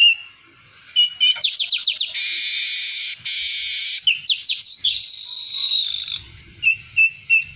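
Streaked weaver (manyar kembang) singing in full song. It gives quick falling notes, then two long wheezy buzzes, then a buzz with a held whistle in it, and ends in short repeated chirps.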